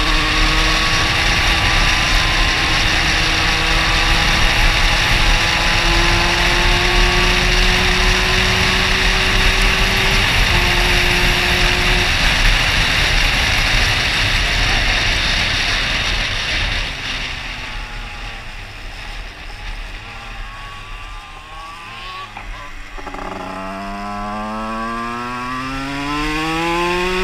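Tuned two-stroke Minarelli AM6 moped engine heard from the rider's helmet, pulling hard at high revs with its pitch creeping slowly upward. It eases off about 17 seconds in, and from about 23 seconds in the revs climb steeply again as it accelerates.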